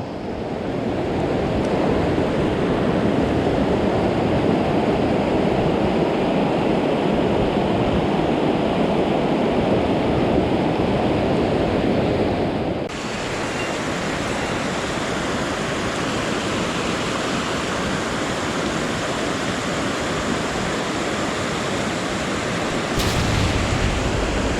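Steady rush of a mountain stream's flowing water. The level and tone of the rush drop abruptly about halfway through, and a low rumble joins it near the end.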